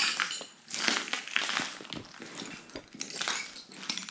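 Footsteps crunching over a floor strewn with debris and paper, several uneven steps.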